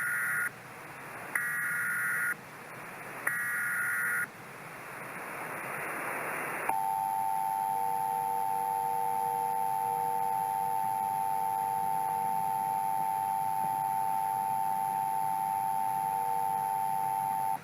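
Emergency Alert System header: three short bursts of warbling data tones, then a swelling hiss of static. About seven seconds in, the steady two-tone EAS attention signal starts and holds for about eleven seconds before cutting off suddenly, the signal that a tornado warning is about to be read.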